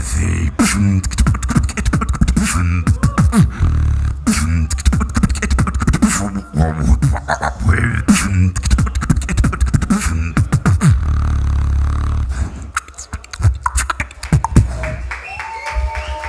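Solo beatboxing into a handheld microphone: heavy sub-bass under kick and snare sounds, sliding vocal bass lines and sharp clicks. The heavy bass drops out about twelve seconds in, leaving sparser clicks and short sounds as the routine winds down.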